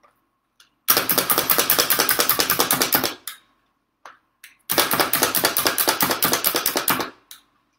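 Pampered Chef Food Chopper's spring-loaded plunger pumped rapidly, its blades clacking down through pieces of chocolate at about ten strokes a second. The chopping comes in two bouts of about two seconds each, with a short pause between.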